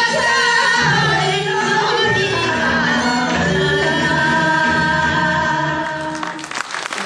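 A song performed live, singing over instrumental accompaniment, ends about six seconds in, and audience applause starts up right after.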